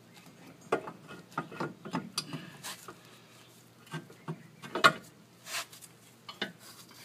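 Irregular metal clinks and knocks as a VW Jetta's front steering knuckle and wheel hub are worked free: slid off the drive axle splines and down off the strut, with the ball joint coming out of the control arm. The loudest knock comes a little before five seconds in.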